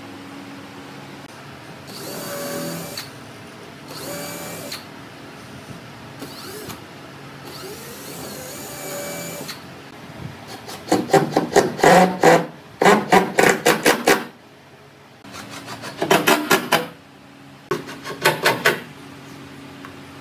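Cordless drill/driver driving screws through pine planking into a boat frame. Three short whirring runs come first, then three longer bursts of rapid rattling clicks as screws are driven in.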